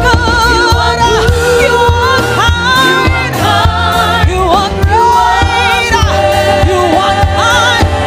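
Live gospel worship song: a woman singing lead with wide vibrato over a band with bass and a steady beat, with other voices joining in.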